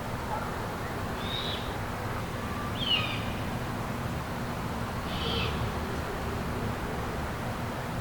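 An unidentified night animal giving a short, high-pitched call three times, about two seconds apart, over a steady low background hum. The second call, about three seconds in, is the loudest.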